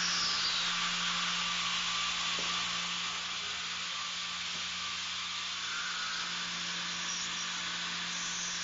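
Line boring machine running: a steady motor hum under a broad, even hiss.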